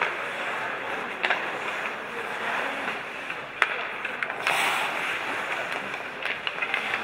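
Ice hockey game in play: a steady hiss of skate blades scraping the ice, with a few sharp clacks of sticks and puck, one louder one about three and a half seconds in, and a louder rush of scraping about four and a half seconds in.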